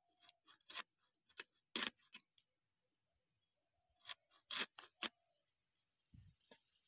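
Bele fish being cut into pieces on the upright blade of a bonti: faint, short crunching clicks as the blade cuts through the fish, coming in a few small clusters.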